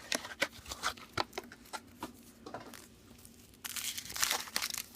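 Foil wrapper of a chocolate surprise egg crinkling and tearing as it is unwrapped: scattered small crackles, then a denser rustle starting about three and a half seconds in and lasting over a second.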